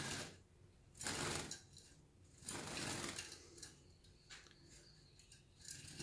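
A small caged songbird fluttering and pecking at a finger held against the wooden cage bars, making faint bursts of rapid clicking and rattling that come and go several times.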